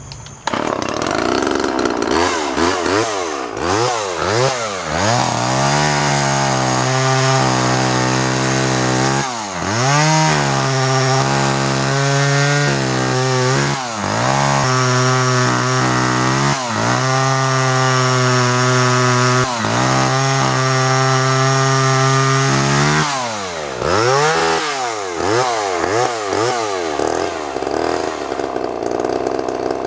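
Homelite Super 2 two-stroke chainsaw running, its engine revved up and down repeatedly and held at high speed for several seconds at a time, then settling lower near the end.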